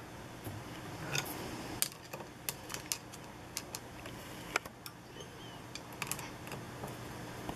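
Irregular small metallic clicks and taps of a screwdriver working the set screws on the rotary hook of a Consew 206RB walking-foot sewing machine, loosening them so the hook can be turned for timing.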